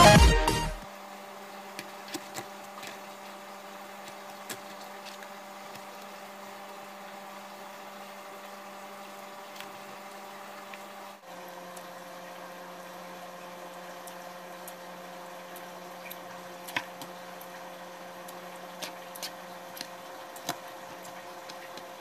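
Quiet eating sounds: soft chewing and mouth noises, with light clicks of chopsticks against plastic food trays, over a steady electrical hum.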